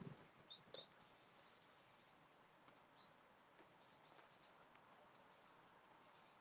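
Near silence, with faint, short, high-pitched chirps from small songbirds coming now and then, a few in the first second and more a couple of seconds later. A brief soft flutter of wings sounds right at the start as crows take off.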